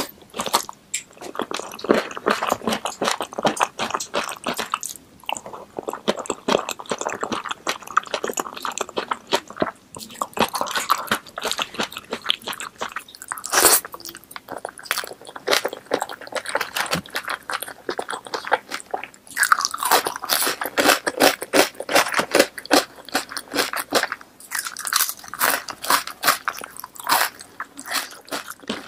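Close-miked eating of boneless chicken feet in spicy sauce with rice: big bites, wet chewing and sharp crunching. One loud crunch comes about halfway, and the crunching grows denser in the last third.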